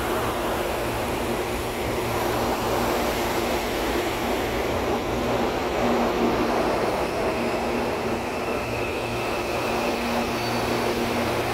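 Electric suburban multiple-unit train moving along the station platform: a steady rolling rumble of wheels on rail with a faint hum from the traction equipment.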